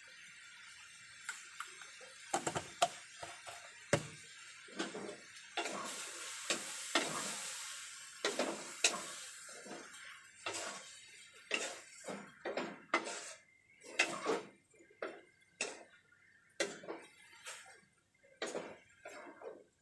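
Wooden spatula stirring pork in a metal cooking pot, with irregular knocks and scrapes against the pot. There is a hiss of frying in the middle, as the pork cooks in its own rendering fat with no oil added.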